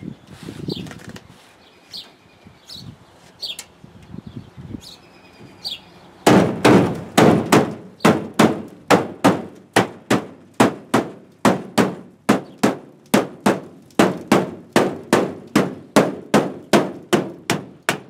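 Rubber mallet hammering a bed rail cap through a towel onto the side of a Ford F-250's truck bed, driving it into place. After a few light taps, a steady drumming of blows starts about six seconds in, two or three a second, each ringing briefly.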